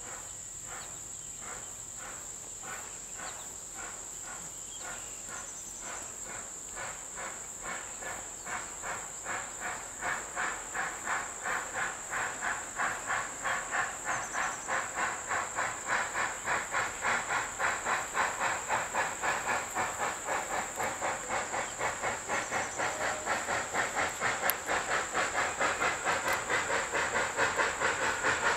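Southern Railway 2-8-0 steam locomotive #154 working toward the listener, its exhaust chuffing in a quick, even rhythm that grows steadily louder as it approaches.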